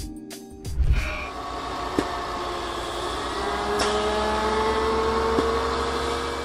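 A vehicle engine running steadily with a low rumble, its pitch rising slowly.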